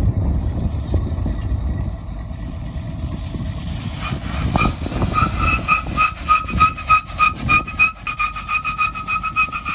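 Wrecked pickup truck being dragged, first a low rumble, then from about four seconds in a high squeal pulsing several times a second over rapid clicking.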